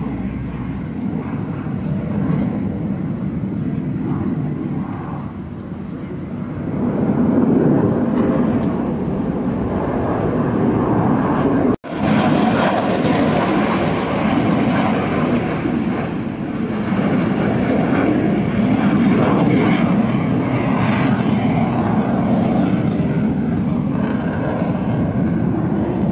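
Aircraft flying over an air show: a steady engine roar that grows louder about seven seconds in. The sound cuts out for an instant near the middle, then carries on.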